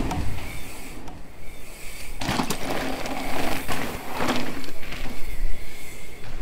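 Mountain bike tyres rolling fast over a loose gravel and dirt trail, with louder crunching surges a little over two seconds in and again around three and a half and four seconds in.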